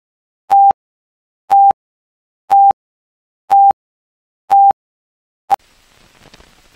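Film countdown leader beeps: a short steady mid-pitched tone once a second, five times, each with a click at its start and end. About five and a half seconds in comes one brief final pop, followed by faint hiss and crackle from the film soundtrack.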